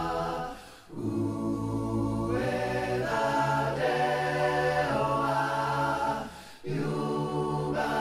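Background music: a choir singing a cappella in long held chords, with two brief pauses, about a second in and about two-thirds of the way through.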